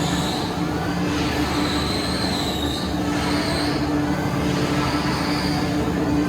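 Heavy sawmill machinery running steadily, with a constant low hum under a thin high squeal that wavers in pitch.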